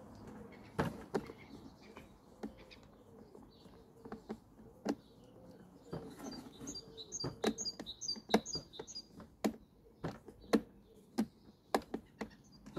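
Sharp, irregular clicks and taps of a hand screwdriver working screws into the plastic motor housing of a Flymo hover mower. Birds chirp in the background for a few seconds midway and again near the end.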